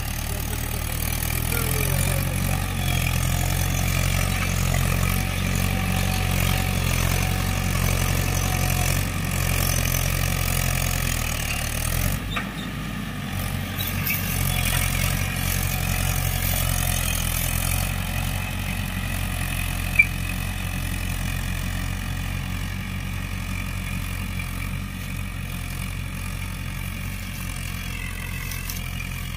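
Swaraj 843 XM tractor's three-cylinder diesel engine running steadily under load while pulling a tined cultivator with the lever fully down, holding its rpm without dropping. A single sharp click comes about twenty seconds in, and the engine grows a little fainter in the second half.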